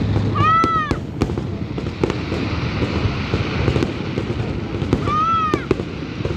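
New Year fireworks display: a dense crackle of many small bursts with a few sharper bangs. Twice a short whistle rises and falls over it.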